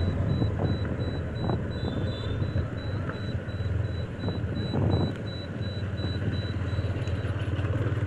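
Motorcycle engine running steadily while riding, with the rush of road noise.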